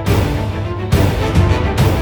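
Background music: a loud soundtrack with heavy bass and strong accented hits, about once a second.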